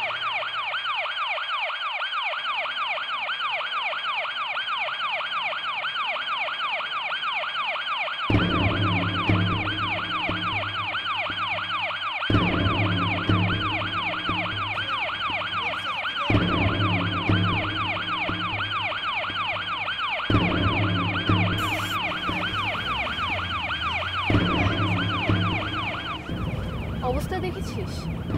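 Ambulance siren sounding a fast, steady up-and-down warble, cutting off a couple of seconds before the end. From about eight seconds in, a low, pulsing bass pattern of background music repeats beneath it in phrases of about four seconds.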